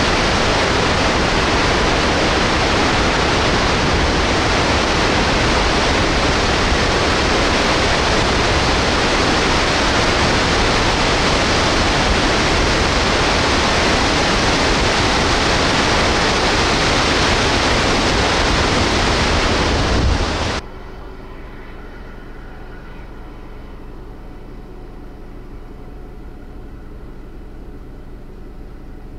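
Snoqualmie Falls in flood, a huge volume of water falling, makes a loud, steady, even rush. Just over twenty seconds in it cuts off abruptly, leaving a much quieter background with a faint steady hum.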